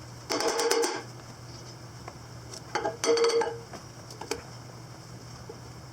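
Two short bursts of metallic clinking and clattering, about half a second in and again about three seconds in, over a steady low hum.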